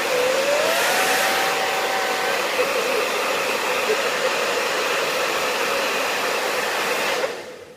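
Handheld hairdryer blowing with a steady rushing whir, switched off about seven seconds in, the sound dying away quickly.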